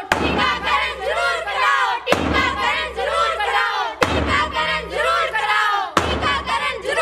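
A group of young women shouting slogans in unison, with a drum struck once every two seconds, four beats in all.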